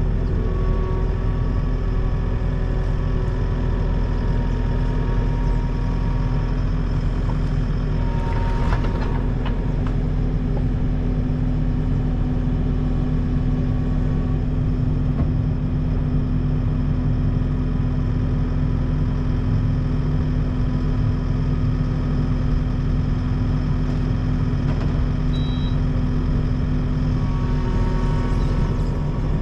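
Engine running steadily at constant speed, with a low hum that does not change.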